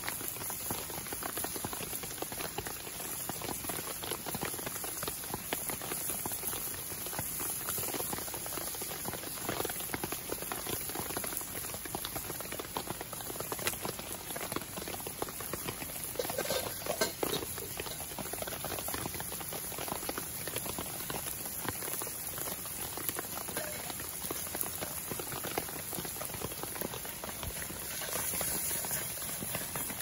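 Vegetables sizzling in a frying pan over a wood campfire, with the fire crackling and a steady patter of rain.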